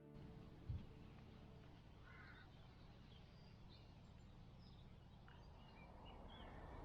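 Faint outdoor ambience: a steady low rumble with scattered distant bird calls, one fuller call about two seconds in. There is a single short thump just under a second in.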